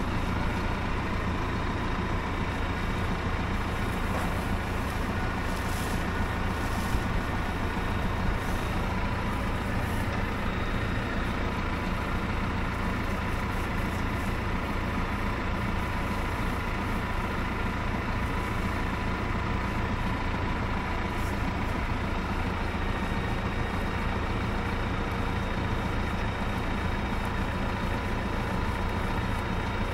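Tractor engine running steadily at one constant speed: a low, even hum with a thin steady whine over it.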